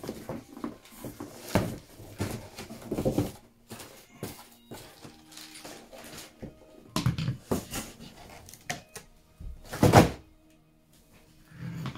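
Handling noise from unpacking an air rifle: cardboard box and plastic wrap rustling and knocking as the rifle is lifted out, in irregular clusters. Near the end comes one loud thunk.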